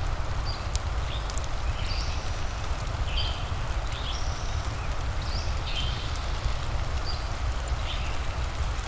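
Rain and fireplace ambience: a steady low rumble and hiss with scattered sharp crackles from the fire. Short high chirping calls of a small animal repeat about once a second over it.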